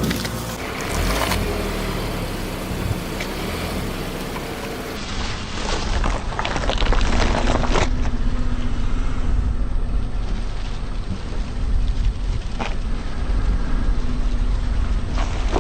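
A car rolling slowly with its engine running low, with a run of crackles and snaps about six to eight seconds in as a tyre crushes something, and a few single cracks later on.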